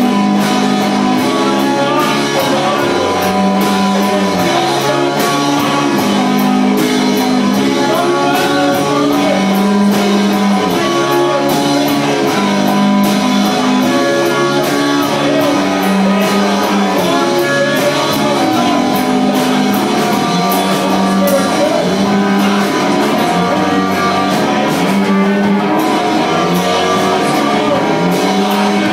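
Live rock band playing: guitar over a drum kit, with steady cymbal strokes.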